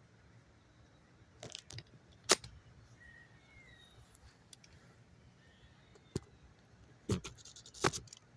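Scattered sharp clicks and clatters of handling, metal or hard objects knocked together, the loudest about two seconds in and another cluster near the end. A faint short chirp sounds about three seconds in.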